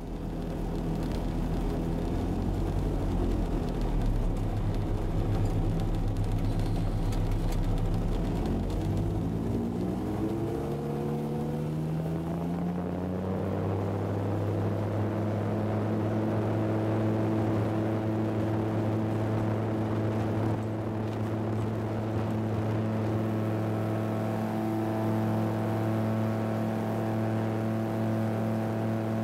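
Titan Tornado II light aircraft's engine and propeller, heard from inside the cockpit, running at low power while taxiing, then rising in pitch over a few seconds about a third of the way in. It holds steady at full power through the takeoff roll and lift-off.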